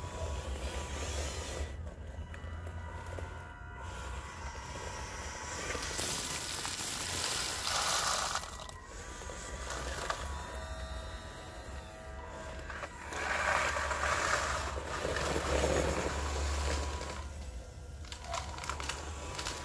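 Radio-controlled scale Volvo wheel loader at work in gravel: small electric motors whine, rising and falling, as it drives and works its bucket. Gravel crunches and rattles as the bucket digs in, loudest in two spells, one just past a third of the way in and one about two-thirds in, with loose stones pouring off the raised bucket.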